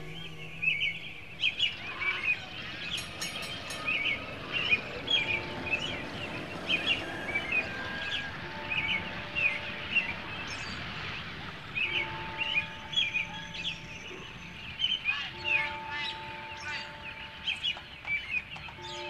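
Many small birds chirping in quick, short, overlapping calls. A few longer held tones join from about five seconds in.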